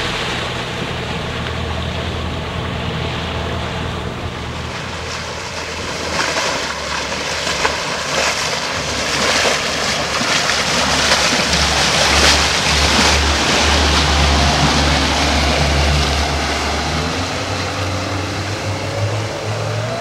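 Motorboat engine running under way at speed, over rushing water and wind buffeting the microphone. The engine note climbs near the end.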